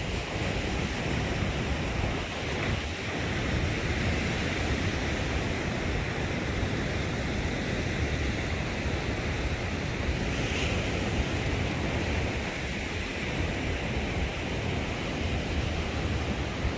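Sea surf washing onto a sandy beach, a steady rush of breaking waves, with wind on the microphone.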